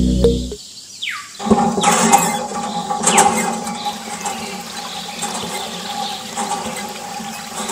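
Water running and splashing steadily, with a faint steady hum under it and two brief falling squeaks early on.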